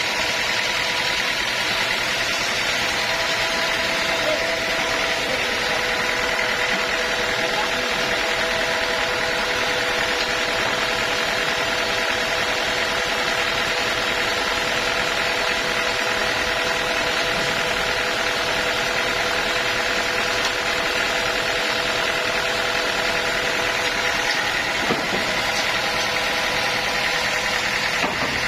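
Sawmill machinery running steadily: a constant mechanical drone with a steady whine.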